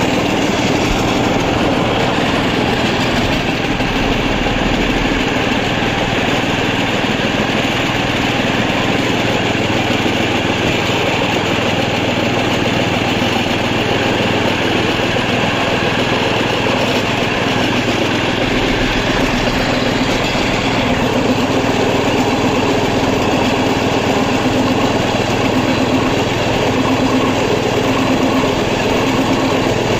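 A small motor running steadily at a constant speed, without a break.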